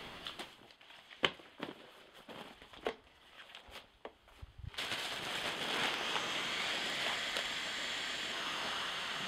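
Thin nylon fabric of an ultralight air sleeping mat crinkling and rustling as it is unrolled and smoothed out, in short scattered crackles. About five seconds in a steady, louder hiss of rushing air starts and holds as the mat fills.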